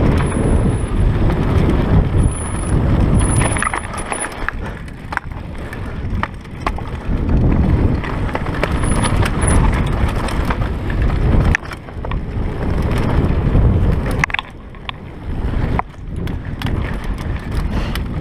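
Mountain bike ridden fast down a dirt trail: wind rushing on the microphone, tyres on loose dirt, and the bike rattling and knocking over bumps. It eases off briefly a few times.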